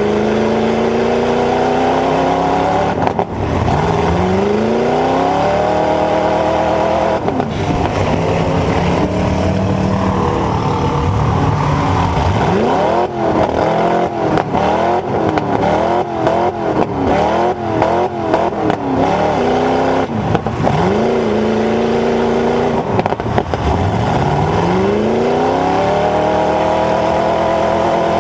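Dodge Ram pickup's V8 running through open headers and stacks, heard from inside the cab. It revs up and falls back again and again, with a stretch of quick up-and-down revs in the middle. A few sharp bangs cut in along the way.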